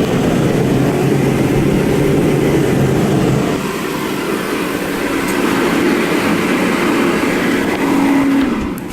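Mr. Heater 60,000 BTU forced-air propane heater running: a steady, loud rush of its fan and burner, with a low hum underneath that drops away about a third of the way in.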